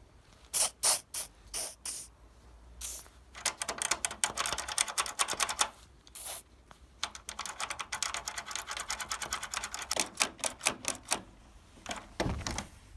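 Tool work while fitting a door: a few sharp knocks, then two long runs of rapid mechanical clicking, then a handful of separate clicks.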